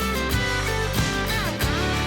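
Background music: an instrumental pop track with guitar and a steady beat.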